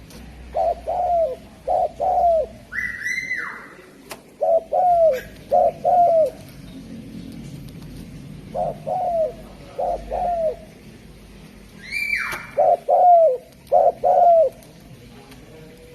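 Spotted dove (derkuku) cooing: four phrases of four short, low coos each, repeating about every four seconds. Twice, near the start of the first and last phrases, a higher call slides down in pitch.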